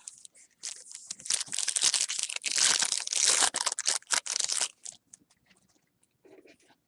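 A foil trading-card pack wrapper being torn open and crinkled by hand, for about four seconds, then trailing off into a few small rustles as the cards are slid out.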